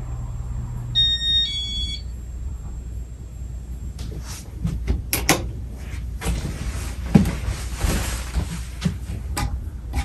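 A two-note electronic beep about a second in, after which the low hum of the Casablanca Nouvelle ceiling fan's motor drops away as the fan is switched off and coasts down. From about four seconds in comes a run of sharp clicks and rustling handling noise.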